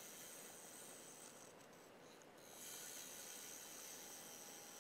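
Faint hiss of a bowl gouge cutting into a spinning maple bowl on a wood lathe, dropping away for a moment about two seconds in, then resuming.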